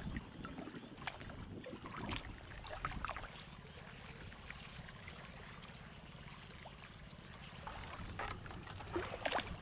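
Small waves lapping and splashing irregularly against the lakeshore in a building swell, with a steady low rumble under them. The splashes bunch up near the end.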